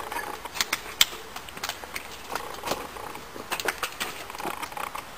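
Footsteps on pavement as people walk up: irregular short taps and scuffs over a steady outdoor hiss.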